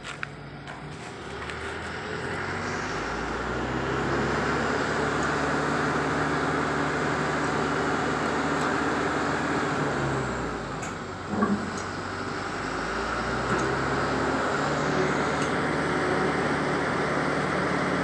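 Diesel engine of a truck-mounted hydraulic crane revving up and running hard to drive the hydraulics while hoisting a steel chimney stack. The revs ease off briefly about ten seconds in, a single metallic knock follows, and then the engine revs up again.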